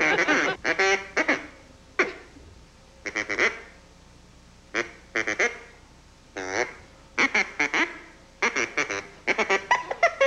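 Duck call blown in short quacking bursts, phrased like talk with pauses between them; one call near the middle dips and then rises in pitch.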